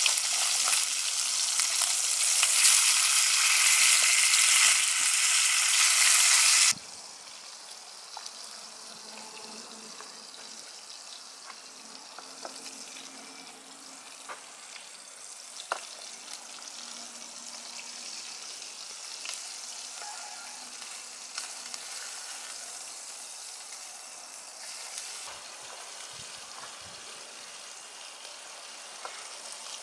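Fish fillets sizzling loudly in hot oil in a frying pan, with tongs turning them. About seven seconds in, the sizzle cuts off suddenly, leaving a much quieter background with a few faint clicks.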